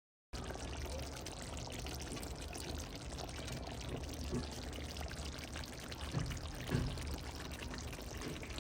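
A pot of curry chicken simmering after water has been added: a steady bubbling hiss with a few bubbles popping now and then. It starts abruptly after a brief silence at the very beginning.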